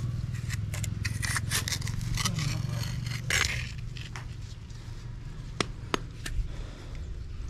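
A machete blade scraping and chopping into dry, stony soil in a run of short, irregular strokes, followed by two sharp clicks a little over halfway through.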